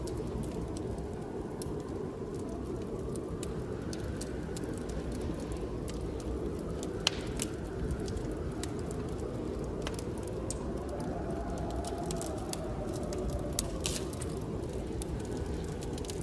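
Blizzard wind blowing steadily with a low rumble and a faint howl that swells and fades, while a wood fire crackles and pops throughout, with a sharper pop about seven seconds in.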